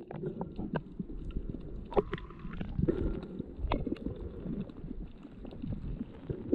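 Muffled underwater sound picked up through a submerged camera's waterproof housing: a low rumbling and sloshing of water with scattered faint clicks and crackles.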